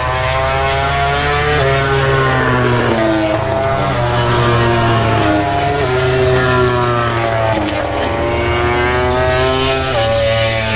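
MotoGP racing motorcycles, 1000 cc four-cylinder four-strokes, running at speed on the circuit. Their engine notes rise and fall as the bikes pass one after another, over a steady low drone.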